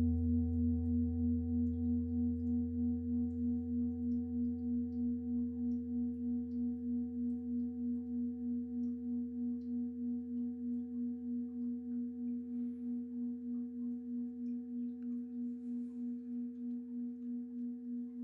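Deep pelvic singing bowl (Beckenschale) ringing on after a single strike. It is a low, wavering hum that pulses about three times a second and slowly fades.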